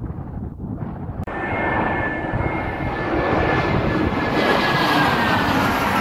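Wind buffeting the microphone, then, after a sudden cut about a second in, a twin-engine jet airliner passing low overhead on landing approach. Its loud jet engine noise carries a high whine that slowly falls in pitch as it goes over.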